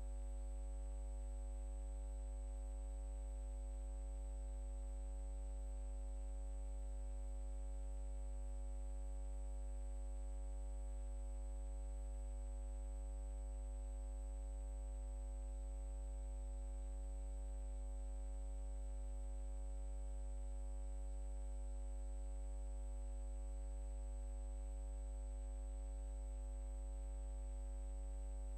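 Steady electrical hum with a buzz of overtones above it, unchanging throughout, plus a faint high whine.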